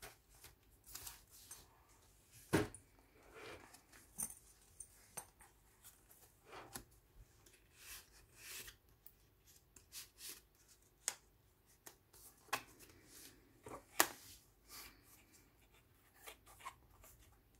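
Paper rustling and pages turning as a thick handmade junk journal is leafed through, with the loose photos and paper tags tucked into it being handled. There are scattered light rustles and clicks, and two sharper knocks, one a few seconds in and one later on.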